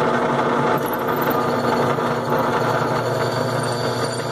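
Drill press motor running steadily with a constant hum while a small twist bit drills a hole in a steel piece held in locking pliers.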